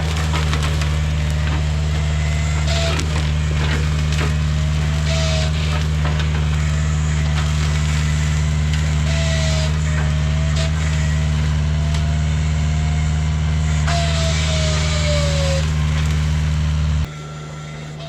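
Kubota U55-4 mini excavator running hard with its XC5 hydraulic brush cutter chewing through brush and small wood, with repeated bursts of splintering over a steady drone and a wavering whine. The sound drops sharply about a second before the end.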